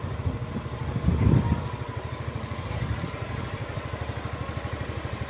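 A small engine idling with a rapid, even low beat, swelling louder briefly about a second in.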